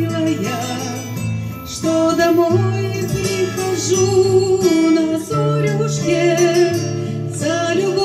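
A woman singing a song into a handheld microphone over amplified backing music with held bass notes.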